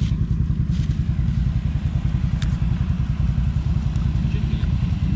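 ATV engine idling, a steady low rumble, with a short click about two and a half seconds in.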